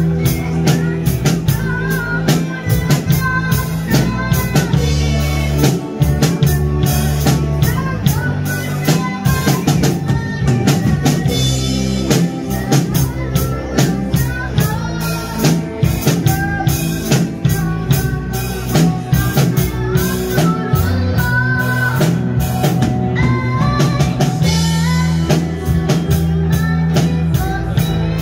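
A live band playing with a steady drum-kit beat, bass guitar and a melodic line over it.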